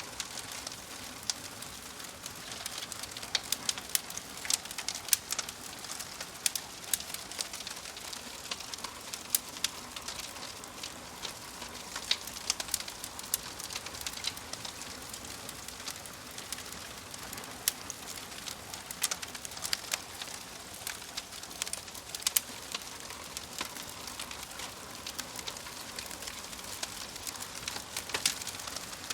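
Wood logs burning in a fireplace, crackling with irregular sharp pops over a steady hiss.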